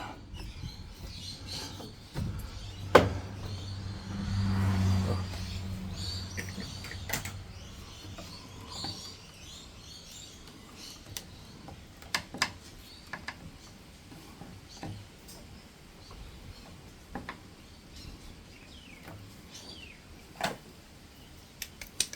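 Scattered clicks and knocks of washing machine parts being handled and worked loose, with a louder knock about three seconds in.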